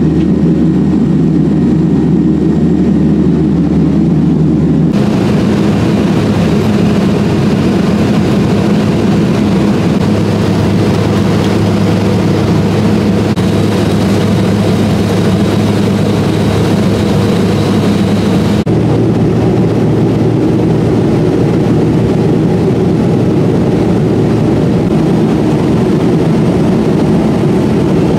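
Steady engine drone heard inside the cabin of a small passenger plane, in three stretches whose tone changes abruptly where the footage is cut.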